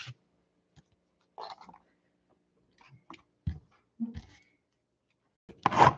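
Soft, scattered handling noises from hands moving plastic card top loaders and a shrink-wrapped card box: a brief rustle about a second and a half in, then a few light clicks and a low knock a couple of seconds later.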